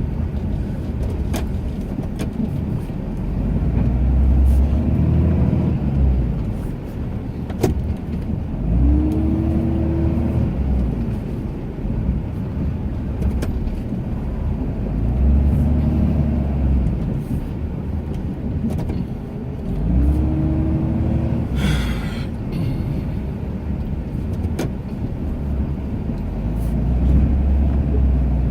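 Ram 2500 pickup's engine revving up and easing off over and over, a swell about every five or six seconds, as the truck pushes snow with its plow blade in short back-and-forth runs. A few sharp clicks are heard in between.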